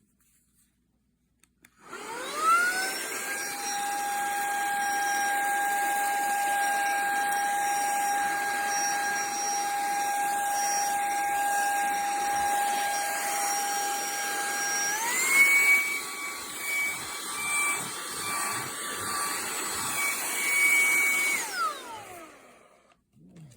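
Litheli cordless handheld vacuum switched on, its motor whining up to a steady high pitch. About 13 seconds later the pitch steps up higher, as it changes to its stronger suction setting. It is then switched off, the whine falling away as the motor winds down.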